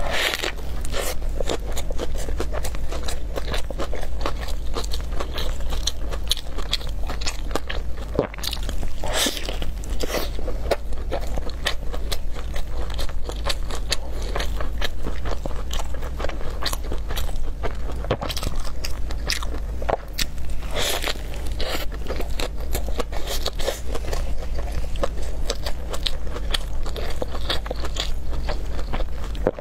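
A person biting and chewing crunchy food close to the microphone, with many small irregular crunches and crackles, over a steady low hum.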